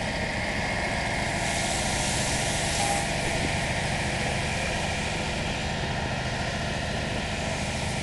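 An engine running steadily under the continuous hiss of water spraying from a fire hose onto a burning car. The hiss is stronger about two to three seconds in.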